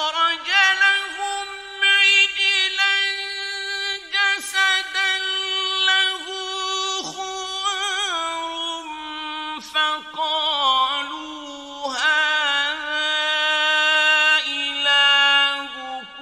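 A male reciter chanting the Quran in the melodic mujawwad tajweed style. One voice holds long, high, ornamented notes that waver and glide, with only brief breaks between phrases.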